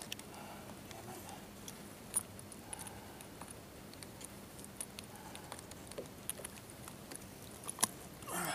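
Scattered light clicks and taps from unhooking a fish in a landing net: the lure and its hooks are being worked free while the fish flips. The sharpest tick comes about two seconds in, with a few more near the end.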